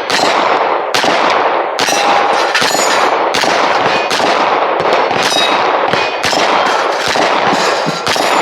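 A rapid string of gunshots, each answered by the ringing clang of a steel target being hit, about one shot every three quarters of a second, a dozen or so in all.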